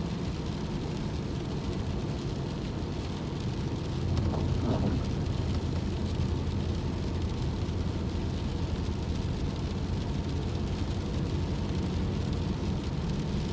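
Car on the move, heard from inside the cabin: a steady low road and engine rumble that gets louder about four seconds in.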